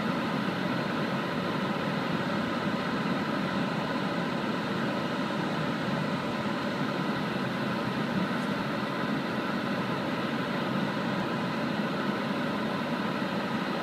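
Steady driving noise inside a moving car's cabin: engine and tyre noise at an even cruising pace, with no change in level.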